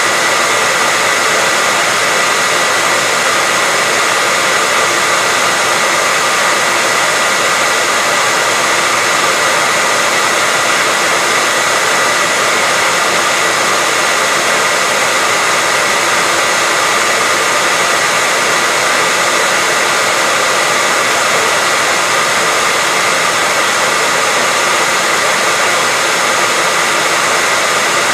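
Hair dryer running steadily on a constant setting: an even rushing blow of air with a steady high motor whine, unchanging throughout.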